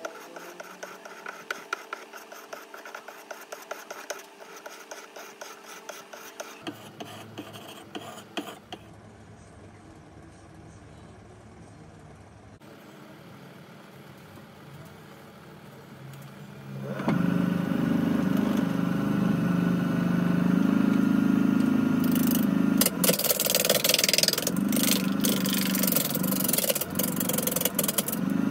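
A turning gouge is rubbed in quick strokes on a sharpening stone, with a rhythmic scraping. After a quieter pause, a small wood lathe's motor starts with a sudden steady hum. A few seconds later the gouge bites into the spinning log, and a loud, gritty cutting sound rides over the hum.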